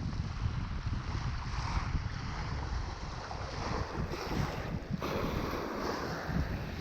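Sea waves washing in and drawing back on the shore, swelling every second or two, with wind rumbling on the microphone.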